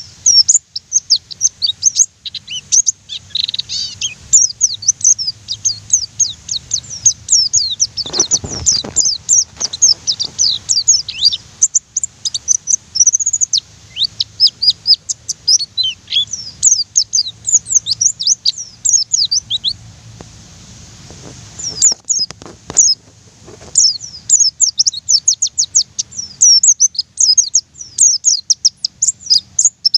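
White-eyes (pleci) singing in a fast, busy run of high, sharply sliding chirps, with a short lull about two-thirds of the way through. Dull low thumps come twice, about eight seconds in and after the lull.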